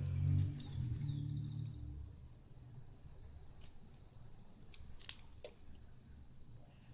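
Faint, scattered clicks and scrapes of a prying tool working at the glued-on front screen of a Fiio M6 music player, with a low handling rumble for the first two seconds and a few sharp clicks later on. A faint steady high whine sits underneath.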